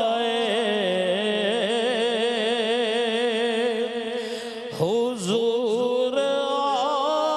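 A man singing an Urdu naat into a microphone, drawing out long held notes with wavering, ornamented turns. About five seconds in he breaks off and starts a new phrase that rises, opening on the word "Huzoor" near the end.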